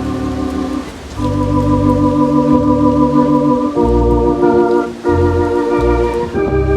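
Electronic organ playing sustained chords over a pedal bass line that moves note by note, with a short break in the sound about a second in.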